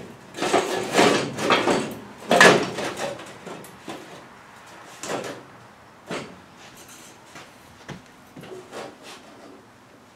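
Workshop handling noises, rubbing and sliding scrapes as something is moved about. Several loud scrapes come in the first three seconds, followed by a few short, faint knocks and rustles.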